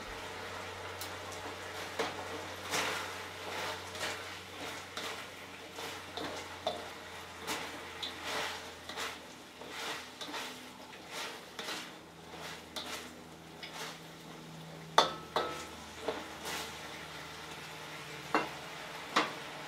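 A cooking utensil stirring and scraping chicken around a metal wok, with repeated clicks and scrapes against the pan and a few sharper knocks in the second half, the loudest about three quarters of the way in. Underneath is a soft sizzle of the sauce simmering as it cooks down.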